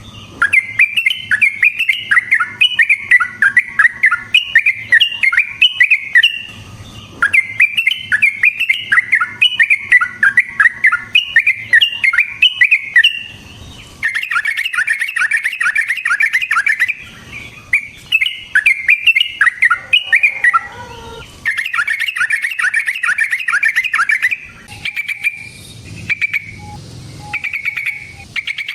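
Yellow-vented bulbul (trucukan) singing long, rapid, chattering rolling phrases of several seconds each, with brief pauses between them; near the end it breaks into shorter separate calls.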